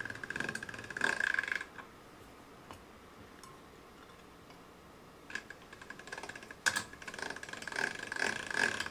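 Hand-cranked stainless-steel Atlas pasta machine rolling a sheet of fresh egg-pasta dough between its rollers. Its gearing gives a fast, even clicking while the crank turns. The clicking stops for about three and a half seconds after the first second and a half, then starts again.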